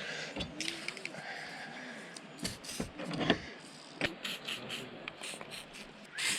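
Metal hand tools clinking and scraping as they are handled, with a brief aerosol spray hiss near the end.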